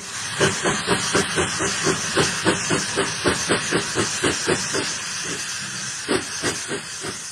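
Steam locomotive chuffing with hissing steam, about four to five puffs a second, then slowing to a few spaced puffs over the last couple of seconds.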